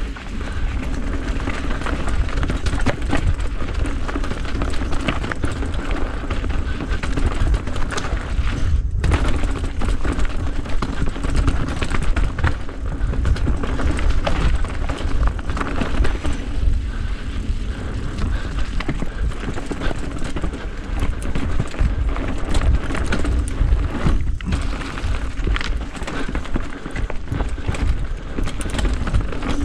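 A vehicle on the move, its engine running steadily under a heavy low rumble, with scattered short knocks and rattles.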